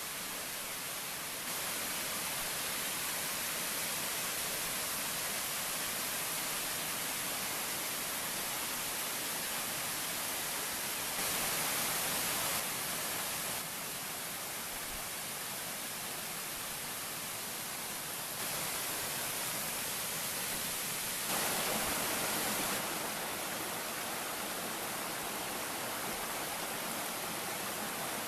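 Small woodland creek running over rocks and little cascades: a steady rushing hiss that jumps louder or softer in a few abrupt steps.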